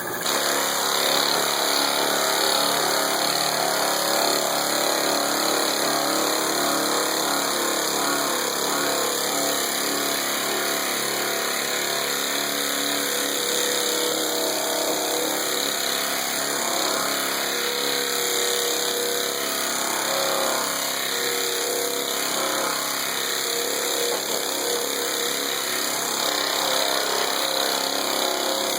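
Large pneumatic body sander running steadily, sanding bondo filler on a pedal car's sheet-metal body: a continuous noisy whir and hiss that starts as soon as the talking stops.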